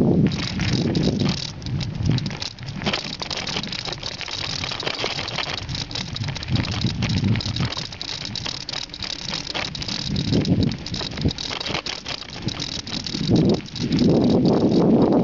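Bicycle rattling over a rough dirt and cobbled track: a dense, continuous clatter of small knocks, broken now and then by patches of low wind rumble on the microphone, with a steady wind rush near the end.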